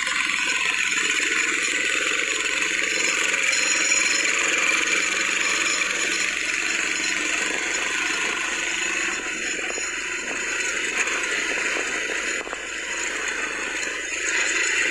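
An ATV's engine running while riding over a rough dirt trail, mixed with the rattle and clatter of the machine's body over the bumps.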